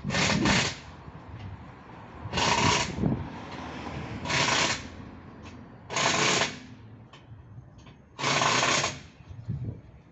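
Impact wrench hammering on lug nuts in five short bursts about two seconds apart, the first broken into two quick pulses.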